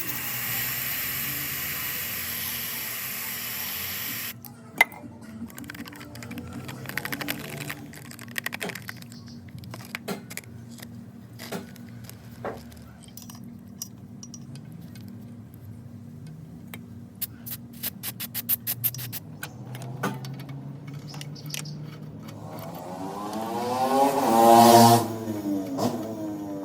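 Aerosol can of WD-40 spray hissing steadily for about four seconds and stopping suddenly, used to clean a car's lambda sensor. Then come scattered clicks and taps, and near the end a loud pitched sound that rises and falls.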